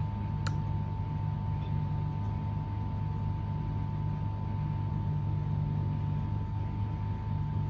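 A steady low machine hum with a faint constant high tone over it, and a single sharp click about half a second in.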